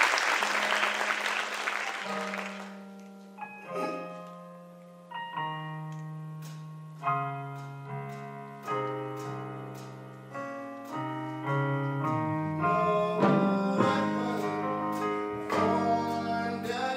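Audience applause dying away over the first few seconds. Under it a slow piano introduction begins: sustained chords struck about every one and a half to two seconds, growing fuller and busier in the second half.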